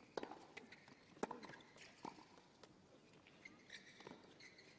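Tennis rally on a hard court: sharp racket-on-ball hits and ball bounces about once a second, the loudest about a second in. Short sneaker squeaks on the court surface come late on as the players move.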